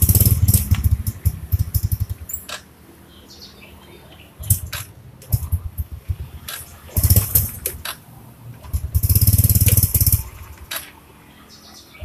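Yamaha Jupiter Z's 110 cc four-stroke single being started again and again after a clutch-plate replacement. It catches in short bursts of running, four or so, and dies between attempts while still cold.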